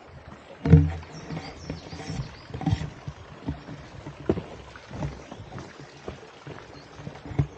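Frogs croaking in a pond: one loud low croak about a second in, then a run of shorter croaks every half second to a second.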